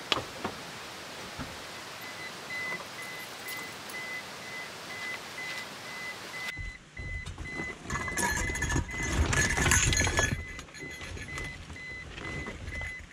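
Rustling and knocking as a canvas backpack is dragged across a car seat, loudest in the middle, with a car's door-open warning chime beeping steadily and evenly throughout.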